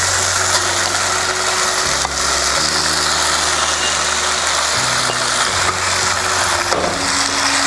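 Ground onion-tomato masala and raw mutton pieces frying in oil in a steel kadai: a steady sizzle. Under it, background music holds low notes that change every second or two.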